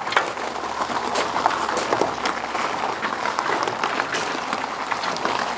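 Footsteps crunching on loose gravel, an uneven run of sharp crunches, a few a second.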